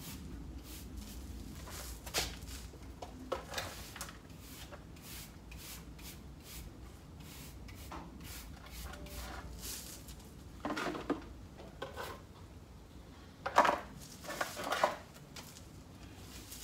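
Hands-on garden work: scattered light taps and scrapes, with louder clattering handling noises a few times, the loudest a little before the end.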